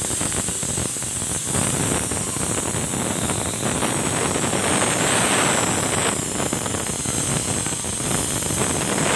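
A steady rushing hiss of noise with no clear pitch, swelling a little midway.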